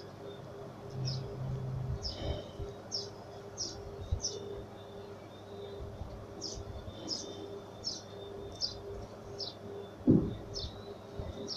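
A small bird chirping in the background, short high notes repeated irregularly about once or twice a second with a brief pause midway, over a faint steady hum; a low thump comes near the end.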